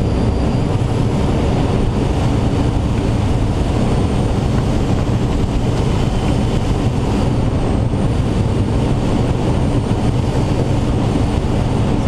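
Steady rush of air around an engineless Schweizer 2-33A training glider's cockpit at about 60 mph with its spoilers half open, wind buffeting the microphone.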